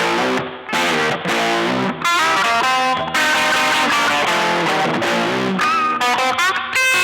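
Electric guitar played through an EarthQuaker Devices overdrive pedal: a freestyle run of overdriven notes with a few short breaks early on, and string bends or slides near the end.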